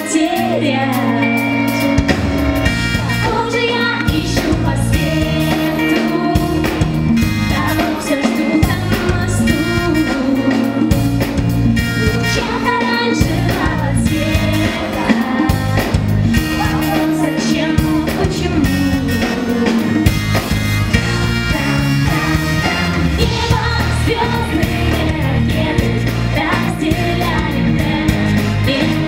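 Pop-rock song with a drum kit, bass and guitar keeping a steady beat, and a singing voice carrying the melody.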